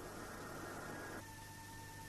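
Faint steady hiss and low hum of the recording's background. A little over a second in, a faint steady high tone joins it.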